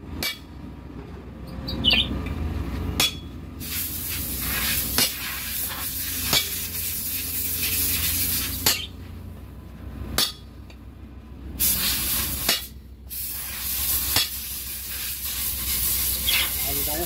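Hammer blows on a long cold chisel driven against a Hino truck brake shoe, cutting away the old riveted brake lining. There are about eight sharp metallic strikes, spaced irregularly a second or two apart, over a hiss that comes and goes.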